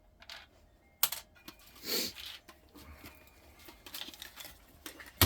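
Clicks and knocks of small objects being handled, with a sharp knock about a second in, a short rustle around two seconds in, a run of light clicks later and a loud knock at the end.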